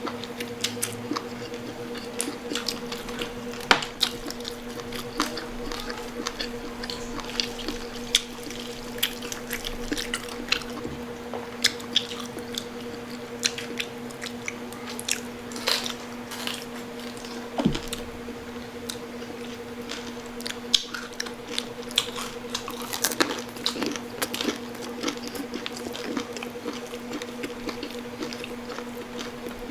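Close-up chewing and crunching of crispy pata, crackling fried pork knuckle skin, with many short crisp clicks and mouth smacks scattered throughout. A steady low hum runs underneath.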